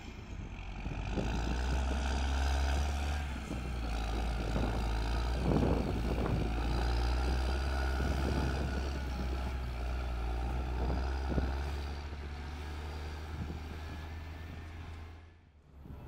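John Deere 670G motor grader's diesel engine running steadily as the grader drives past, with scattered knocks and crunches from the gravel it works over, most of them around the middle. The sound fades out just before the end.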